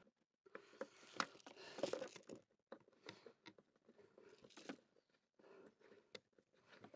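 Faint scattered clicks and rustles of fingers working a white plastic hose fitting into a port on a portable water filter.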